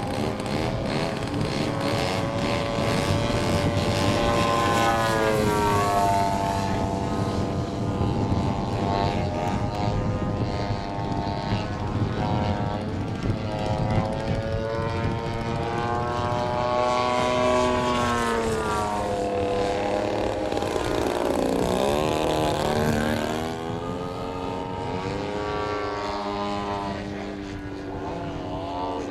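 Radio-controlled aerobatic airplanes flying, their motors and propellers running with the pitch rising and falling again and again as they are flown through 3D aerobatics.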